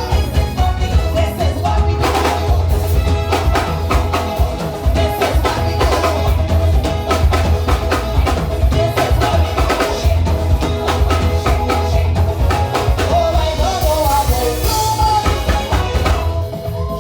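Live soca music played loud over a sound system: a driving drum beat and deep bass, with singing.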